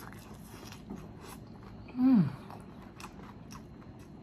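Chewing and lip smacks of a man eating a ranch-dipped chicken wing, with one short hummed "mm" that falls in pitch about two seconds in.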